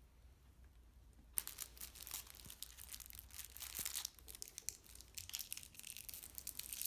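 Plastic crinkling and rustling as makeup brushes are rummaged out of a fabric brush roll and handled, starting about a second and a half in, with many small irregular clicks.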